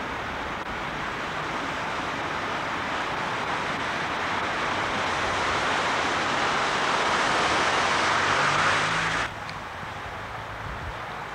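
A four-wheel-drive utility vehicle drives through deep floodwater, its front and wheels throwing up a rushing spray of water that grows steadily louder as it comes closer, with a faint engine note under it. About nine seconds in, the sound cuts off abruptly to a quieter wash of water and a motorcycle riding through the flood.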